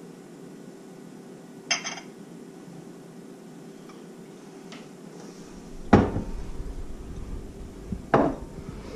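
A bottle of Guinness Extra Stout being poured into a glass beer mug, with glassware clinking and knocking: a short clink about two seconds in, a loud knock about six seconds in and another near the end, over a steady low hiss.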